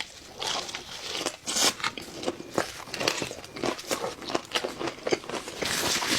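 Close-miked crunching and biting into crisp fried food, with many irregular sharp crackles as it is chewed.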